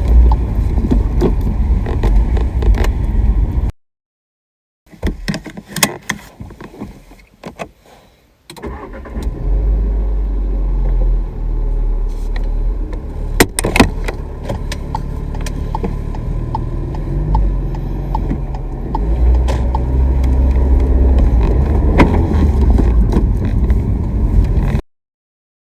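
Car engine running, then stopping abruptly; after a pause a starter cranks with an irregular sputter for a few seconds before the engine catches and settles into a steady run, getting louder again later and then cutting off.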